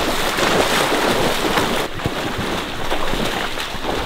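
Loud, steady rushing noise of wind buffeting the microphone, mixed with the rustle of people moving through marsh reeds. It eases slightly about two seconds in.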